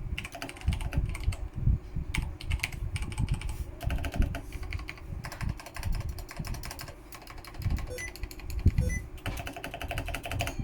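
Razer BlackWidow Ultimate Stealth mechanical keyboard with Razer Orange tactile switches being typed on: fast, continuous runs of key presses with a few brief pauses.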